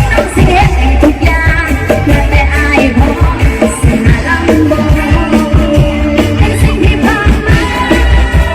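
Thai ramwong dance music played by a combo band, with a singer over a steady drum beat.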